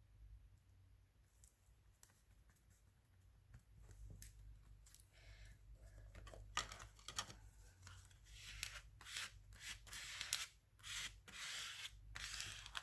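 Faint rustling, rubbing and scraping of paper being handled, with a few short clicks, starting about five seconds in and getting busier toward the end.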